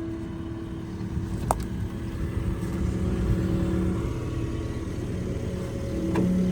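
Skid steer loader's engine running steadily under load, with a couple of sharp clicks, as it is used to push a fence post into the ground.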